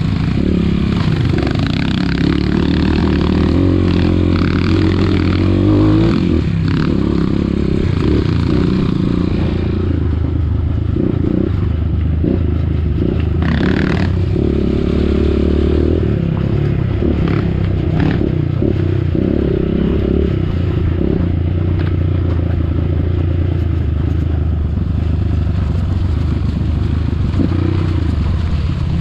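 Trail dirt bike engine running at fairly steady revs, with clatter and a few knocks from the bike over rough ground.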